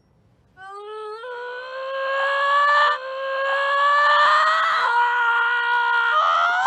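A high-pitched voice holding one long wail for about six seconds, rising slowly in pitch with a few small catches in the note.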